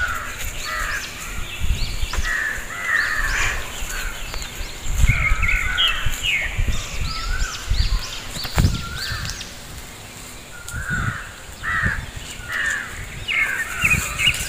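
Crows cawing over and over, short calls following one another and at times overlapping, with a low rumble on the microphone now and then.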